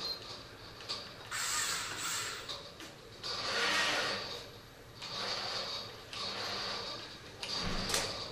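Electric drive motors of a Remotec Cobra bomb-disposal robot's arm whirring in about five short stop-start bursts as the gripper is moved down toward its target, with a sharp click near the end.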